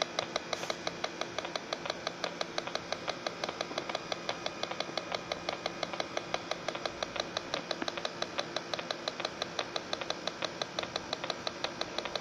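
Electronic freon leak detector ticking steadily and rapidly, about seven short beeps a second, as its sensor probe is held at a refrigeration compressor's fittings.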